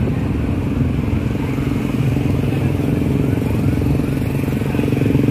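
A large convoy of small motorcycles riding together, many engines running steadily at once.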